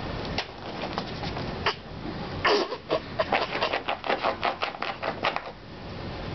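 A chocolate Labrador nosing and tugging at a plastic toy wedged under an upright vacuum cleaner. A couple of single clicks come first, then, from about two and a half seconds in, a quick run of short sniffing and scraping sounds, about six a second, lasting some three seconds.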